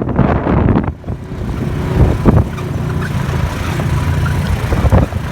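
Steady low rumble of a vehicle engine running, with a sharp knock about two seconds in.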